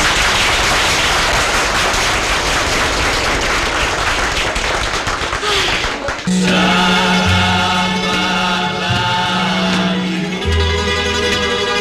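Audience applauding for about six seconds, then a Greek bouzouki band strikes up a new laïkó tune with a bouncing bass line.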